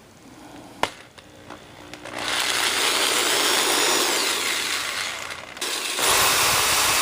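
A small electric motor-driven tool or appliance starts about two seconds in and runs loudly with a harsh, hissy noise. It eases off briefly around five and a half seconds, then runs again louder. A single sharp click comes about a second in.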